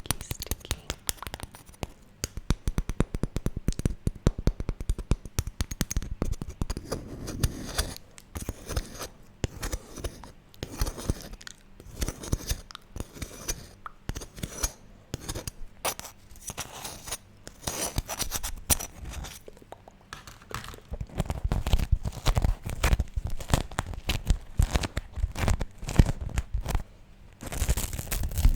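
Beeswax food wrap being handled close to the microphone: dense, irregular crackling and sticky peeling as the warmed wax-coated cloth is pressed, pulled apart and crinkled, in clusters with brief lulls.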